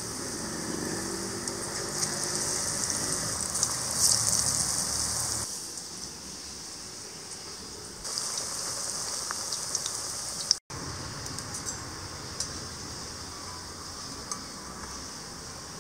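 Batter-coated sweet potato bondas deep-frying in hot oil in an iron kadai: a steady sizzle with small crackles and pops.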